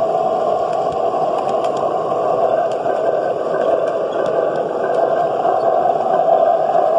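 O scale model diesel locomotive, an EMD F-unit, rolling past on the layout with a steady rushing noise and no distinct engine beat.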